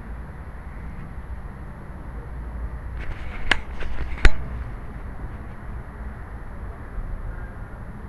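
Low rumbling handling noise from a small camera worn on a cat's collar as the cat moves. About three seconds in comes a short run of sharp clicks, ending in one loud knock, as the camera bumps against something.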